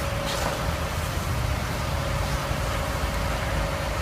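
Steady engine noise: a low rumble with a constant hum and a hiss over it, and a brief hiss near the start.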